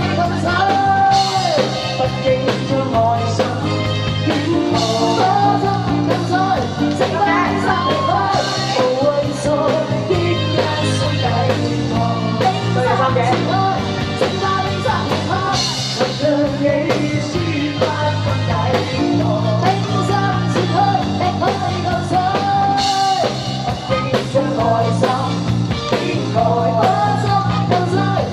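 A singer singing a rock-and-roll song into a microphone over a full accompaniment with a steady beat and bass line.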